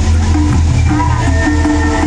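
Loud music with a pulsing bass line and short repeating notes: the volcano show's soundtrack played over loudspeakers.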